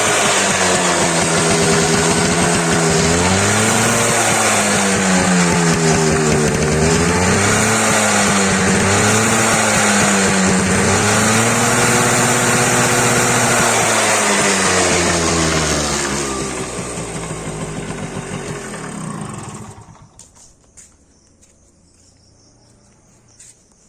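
Yamaha RX 135's single-cylinder two-stroke engine running with stock exhaust, revved gently up and down over and over. Near the end it gets quieter and then stops.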